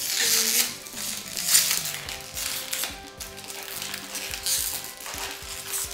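Crinkling and rustling of a small plastic surprise packet being torn open and unwrapped by hand, in uneven bursts with the loudest crackle about a second and a half in.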